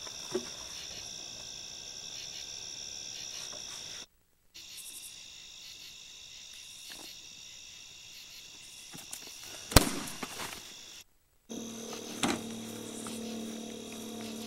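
Crickets chirping steadily at night. Nearly ten seconds in there is a single sharp click with a little clatter after it, and from about eleven seconds a vehicle engine is running steadily under the crickets.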